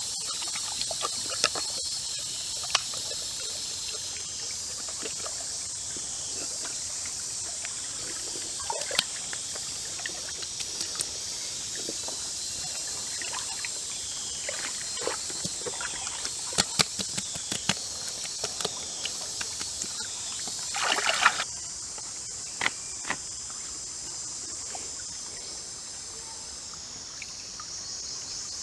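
Wet hands rubbing and pressing a herb marinade into a whole raw chicken: small squishes and taps, with one louder rustle about two-thirds of the way through. Behind it runs a steady high-pitched background of insects and trickling stream water.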